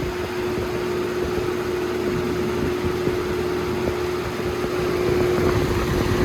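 A Holmes HABF-20 box fan running on high: a steady rush of air with a loud, steady electric hum that the owner says comes mainly on the high setting.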